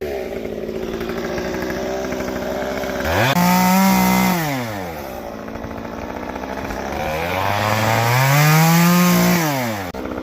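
Gas chainsaw running near idle, then revved up to high speed twice: quickly about three seconds in, and more gradually from about seven seconds in, dropping back each time.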